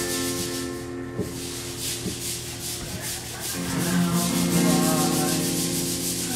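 Acoustic guitar strummed in a quick, even rhythm over ringing chords, with no voice.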